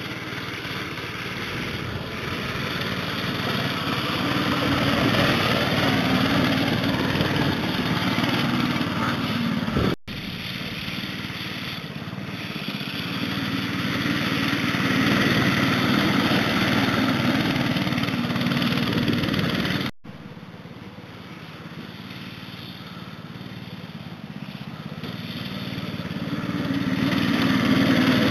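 Small pull-start engine of a homemade off-road go-kart running as the kart drives around, growing louder and fainter as it comes near and moves away. The sound breaks off abruptly and resumes twice, about ten and twenty seconds in.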